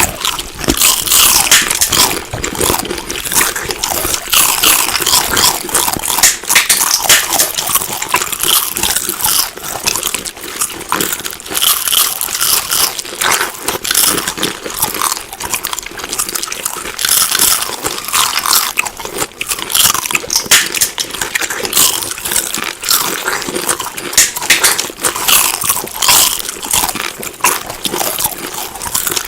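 Close-up chewing and biting of crunchy food: a dense, irregular run of crisp crunches with no let-up.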